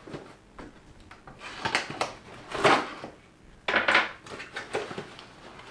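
Clattering and rustling as a small camera stand is taken out of its packaging and handled, in several short bursts.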